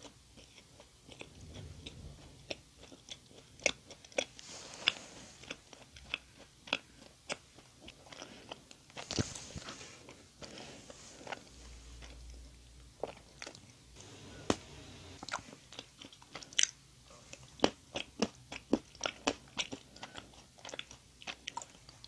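Close-miked chewing of doughnut: wet mouth clicks and smacks, with the clicks coming thickest near the end.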